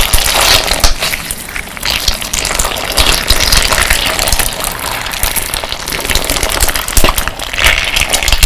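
Slime packed with crystal-glass decorative stones being squeezed and worked by hand: a dense, wet crackling and squishing with the glass stones grinding and clicking against each other.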